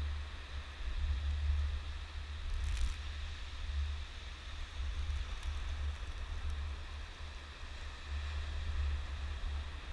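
Wind buffeting the microphone as a gusty low rumble, over the faint steady hiss of surf breaking on the shore.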